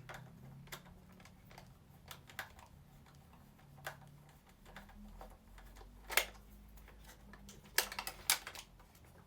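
Scattered small clicks and taps of hard plastic as the battery compartment of a Buzz Lightyear toy is worked open, with a sharper click about six seconds in and a few more near the end.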